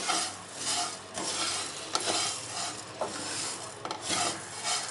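Black plastic spatula scraping through cumin and coriander seeds dry-roasting in a non-stick frying pan, in repeated strokes. The seeds rustle and rattle against the pan, with an occasional click of the spatula on the metal.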